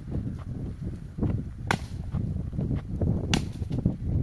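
Sharp cracking strikes about every second and a half, with lighter knocks between, over a steady low rumble.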